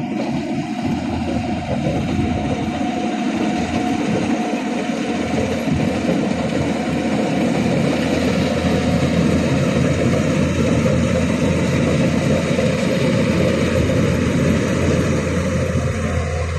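Kubota rice combine harvester running steadily, a dense, loud mechanical drone of engine and machinery.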